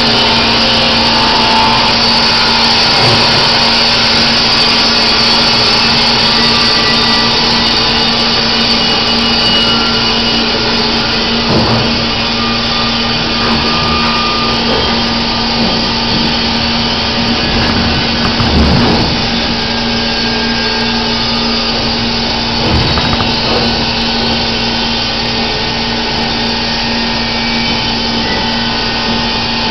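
Baker Products Super Streak band sawmill running at a steady, loud pitch with a constant hum, with a few knocks of lumber being handled about a third and two-thirds of the way through.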